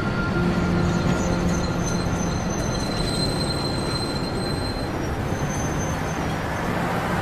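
A tram running on its rails: a steady rumble with faint high-pitched wheel squeal over it.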